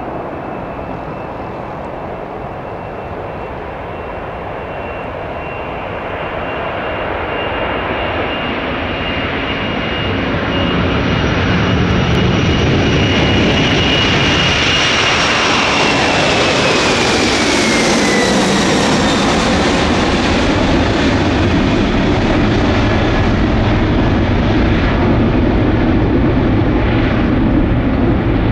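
Boeing 747-400F freighter's four turbofan engines at takeoff power as it rolls, lifts off and climbs away: a high fan whine over a rumble that grows louder. About two-thirds of the way through, the whine slides down in pitch as the jet passes, leaving a steady deep jet rumble.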